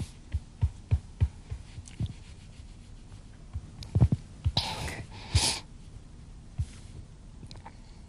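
A person crying in an embrace: two sharp sniffling, sobbing breaths about four and a half and five and a half seconds in, among scattered soft low thumps and rustles from the hug.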